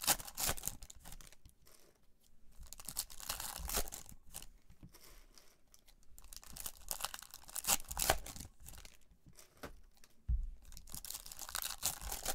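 Trading card packs and cards being handled, rustling in several bursts about every three to four seconds.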